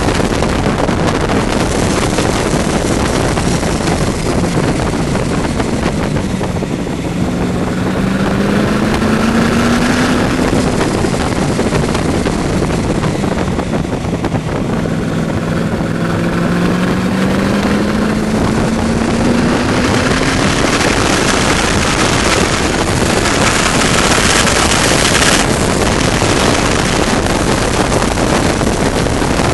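Supercharged, fuel-injected V8 of an open-cockpit AC Cobra at racing speed, heard from the cockpit under heavy wind rush on the microphone. Twice the engine note drops as the car slows for a corner, then climbs as it accelerates out: once about a quarter of the way in, and again around the middle.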